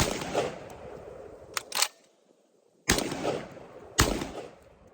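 Three shots from a Garaysar TR19S semi-automatic 12-gauge shotgun firing Winchester White Box birdshot: one at the start, then two about a second apart near the end, each with a ringing tail. Two sharp clicks fall between the first and second shots. The shooter finds these low-powered loads too weak to cycle the action reliably.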